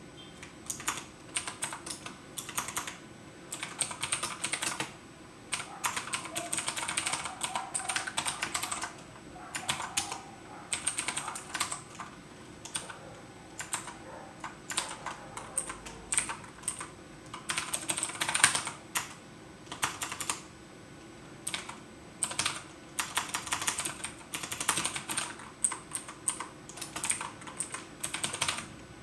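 Typing on a computer keyboard: bursts of rapid keystrokes separated by short pauses.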